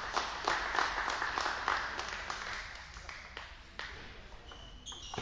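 A few people clapping in a table tennis hall, quick even claps at about three a second that thin out and fade about halfway through, with scattered clicks of table tennis balls after that.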